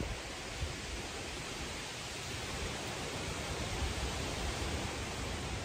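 Steady, even hiss of outdoor background noise, with no distinct events.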